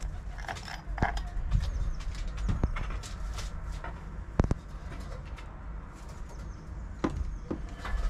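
Several knocks and clatter as a homemade wood-and-metal bird feeder is handled and set down on a board, the loudest about four and a half seconds in, over a steady low rumble.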